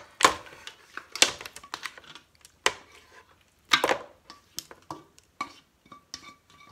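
A spatula scraping and knocking against a stainless steel pot as a saucy seafood boil of crab, lobster, shrimp and corn is scraped out onto a wooden tray, with a string of separate knocks, the loudest about halfway through. The pot gives a light metallic ring in the second half.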